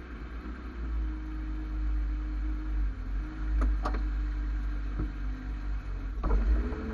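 BMW 323ci's 2.5-litre straight-six engine idling, a steady low rumble with a held hum. A few short sharp clicks or knocks come through in the second half.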